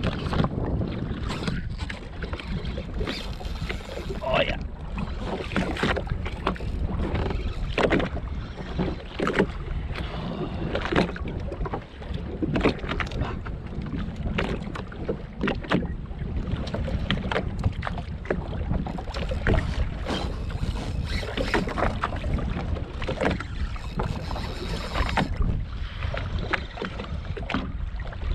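Wind buffeting the microphone over a steady low rumble, with irregular slaps of choppy water against the jetski's hull.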